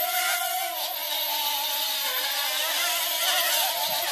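Hubsan H107L micro quadcopter's small brushed motors and propellers spinning, a steady whine that wavers in pitch as the throttle shifts.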